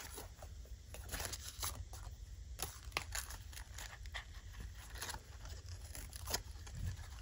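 Kraft paper envelope and journal pages rustling and crinkling under the hands, with scattered light taps and scrapes as a scrap of lace is pushed into the envelope pocket.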